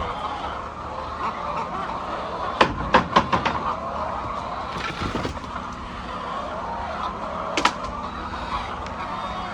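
Steady chatter of a large flock of hens in a poultry house. A quick run of sharp knocks and clatter comes about two and a half seconds in, and a single knock near the end.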